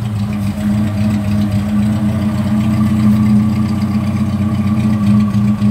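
1966 Vauxhall Victor 101's four-cylinder engine ticking over steadily at idle, still warming up after a cold start.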